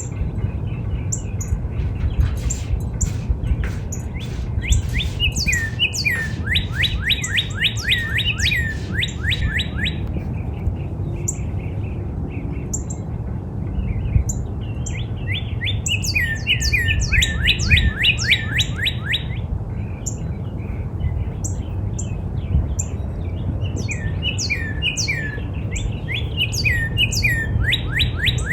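Northern cardinal singing: three phrases of fast, repeated downslurred whistles, about ten seconds apart. Short high chips sound between the phrases, over a steady low rumble.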